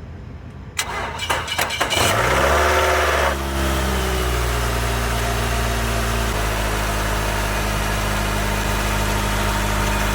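2007 Nissan Altima's 2.5-litre four-cylinder engine cranked by the starter about a second in, catching at about two seconds, running fast for a moment and then settling to a steady idle. With the new belt tensioner pulley and serpentine belt it runs smooth.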